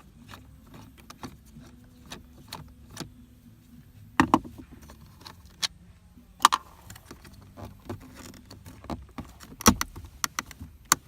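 Small scattered clicks and ticks from a screw being undone and loosened plastic interior trim being handled in a Nissan 370Z's center console, with about four sharper knocks of tool or trim against the console.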